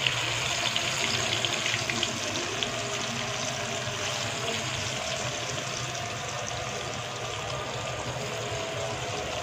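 Battered fish pieces deep-frying in hot oil in a karahi: a steady sizzle full of small crackles and pops.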